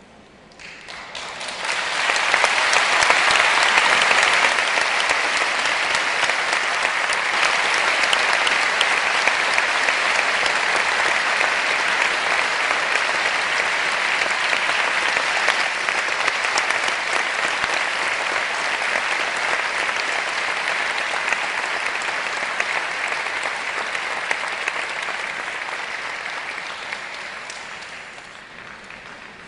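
Audience applause, swelling quickly about a second in, holding steady, then fading away near the end.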